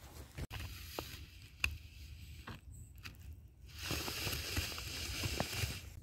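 Footsteps crunching in fresh snow, scattered and uneven, with a low wind rumble on the microphone; a steady hiss rises in the last two seconds.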